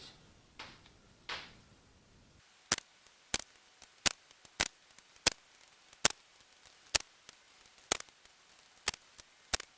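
A series of short, sharp clicks, roughly one every three quarters of a second, beginning a few seconds in.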